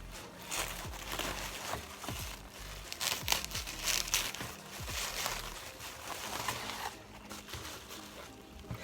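Packaging being handled and unwrapped: irregular crinkling and rustling, with a few sharper crackles.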